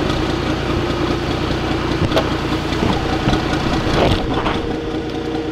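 Off-road 4x4's engine running, a steady drone with a few sharp knocks.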